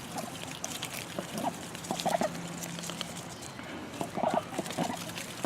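Poultry at feed: a few short, soft calls scattered through, with light ticking of beaks pecking at greens.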